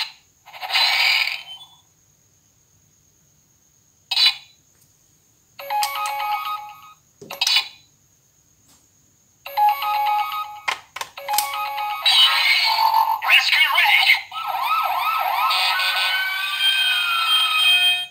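Auldey DX Rescue Driver toy playing electronic sound effects and recorded voice calls through its small built-in speaker, in short bursts with pauses and a few sharp clicks between them. From about two-thirds of the way in, a longer continuous effect with siren-like rising and falling tones plays as the rescue vehicle is summoned.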